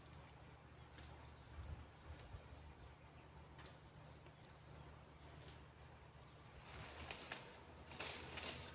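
Quiet outdoor background with a steady low hum and a handful of short, high bird chirps in the first half. Some louder, noisy scuffs come near the end.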